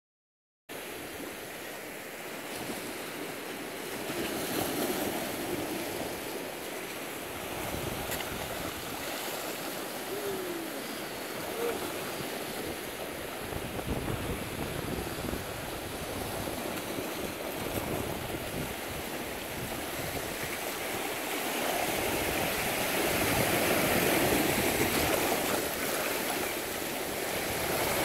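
Sea waves washing and sloshing against shore rocks, a steady rush of water that starts about a second in and grows louder over the last several seconds.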